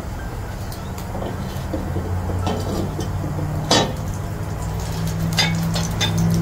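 A cooking utensil knocking and scraping against a pan while shrimp are stir-fried in oil. The sharpest clank comes a little under four seconds in, with several quicker ones near the end, over a steady low hum.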